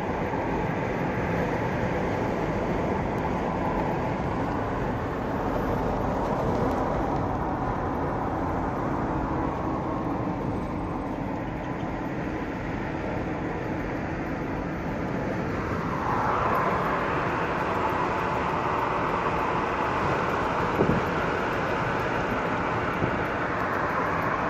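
Steady road and engine noise heard from inside a vehicle's cabin while driving at cruising speed; the noise gets a little louder and hissier about two-thirds of the way through.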